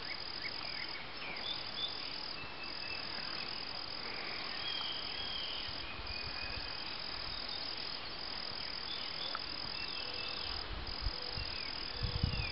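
A continuous high-pitched trill with a few brief breaks. Faint short chirps sound over it, and a few soft low thumps come near the end.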